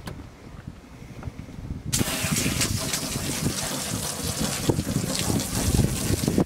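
Water spraying from a boat's washdown hose nozzle onto redfish fillets on the deck, a steady loud hiss that starts abruptly about two seconds in as the trigger is squeezed.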